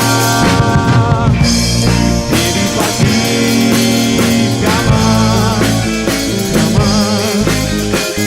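A rock band playing live: drum kit, bass and guitars, with sustained wavering melody lines over a steady beat.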